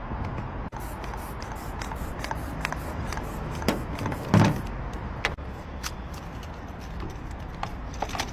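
Scattered light clicks and taps of lockout tools working against a car door, with one louder thump about four and a half seconds in, over steady outdoor background noise.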